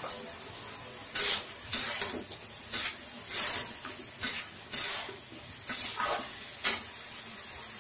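Spatula scraping and stirring through vegetables and spice paste in a frying pan: about ten short, irregular scrapes over a steady faint sizzle.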